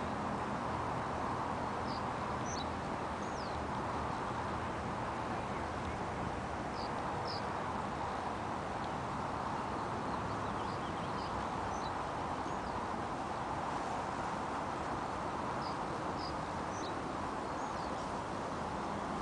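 Steady outdoor background noise with a small bird chirping now and then: short, high chirps in little groups every few seconds.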